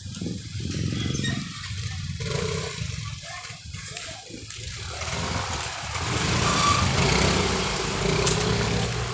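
Street traffic: a motor vehicle's engine running close by, swelling from about six seconds in and easing off near the end, over a low rumble from the walk.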